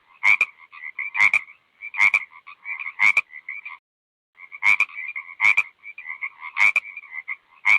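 Repeated animal calls, roughly one a second, each opening with a sharp click followed by a short rasping tone. The calls stop briefly a little past the middle, then resume.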